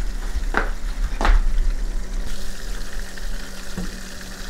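Butter sizzling and bubbling in a saucepan as it finishes browning, stirred with a silicone spatula. Two brief clicks about half a second and a second in.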